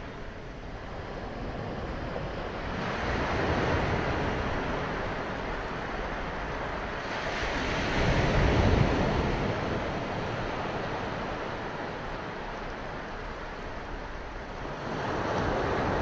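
Small waves breaking along the shore and washing up a sandy beach, the surf swelling and easing in slow surges about every five seconds, loudest about halfway through.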